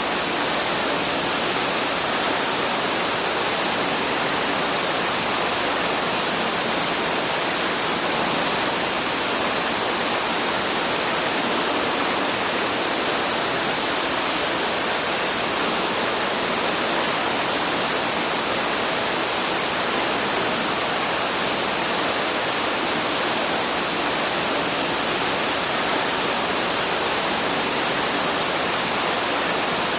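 Waterfall rushing in a steady, unbroken roar of falling water.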